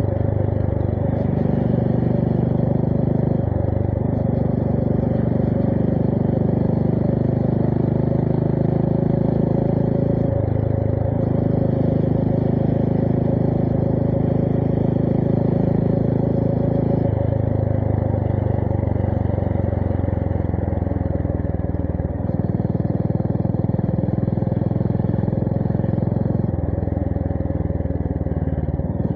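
Honda GB350S's air-cooled single-cylinder engine running through a MILLER Spitfire slip-on exhaust while riding. The steady exhaust note shifts in pitch in steps several times as speed and throttle change.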